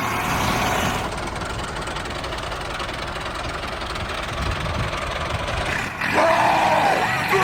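An engine or motor running steadily, cut off about six seconds in by music with yelling.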